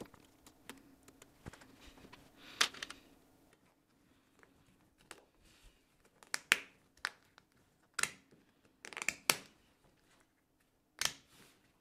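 Scattered small clicks and taps of plastic parts being handled: the halves of a 3D-printed backshell being pressed together around a SCSI cable connector.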